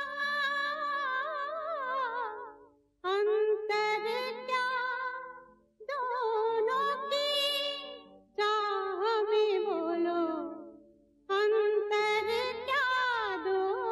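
Devotional song: a woman's voice sings long held notes with a wide vibrato over soft sustained accompaniment. It comes in about five phrases, each fading away before the next begins suddenly.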